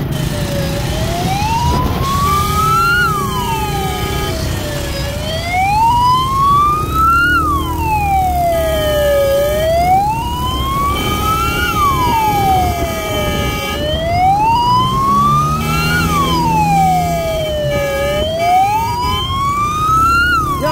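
Wail siren on a motorcycle ambulance, rising slowly and falling back about every four seconds, over and over. A steady second tone sounds on and off above it, and motorcycle engines run underneath.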